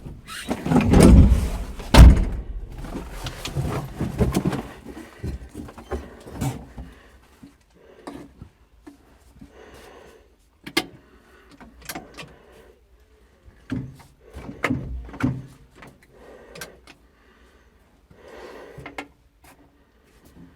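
A run of heavy clunks and rumbling knocks for the first few seconds, then scattered sharp clicks, knocks and rattles with short quiet gaps between them, the kind made by handling a door and keys.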